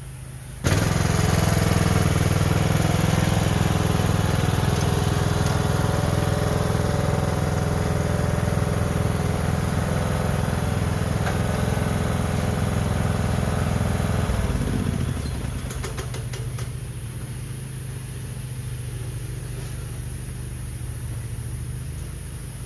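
Riding lawn mower engine, running without its cutting deck, comes in loud and steady under a second in. About fifteen seconds in it drops in pitch and runs on more quietly.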